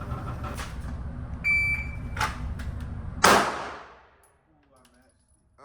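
Shooting-range target carrier running back along its track with a steady hum and a few knocks, a short electronic beep about a second and a half in, then a loud bang with a ringing tail about three seconds in, after which the hum stops.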